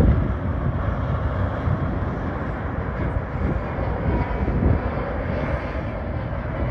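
Jet engines of a FedEx Airbus A300 freighter on final approach, gear down: a steady rumble of jet noise with a faint higher whine.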